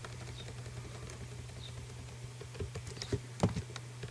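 Computer keyboard keys tapped in scattered single strokes, with a short run of louder strokes about two and a half to three and a half seconds in, over a steady low hum.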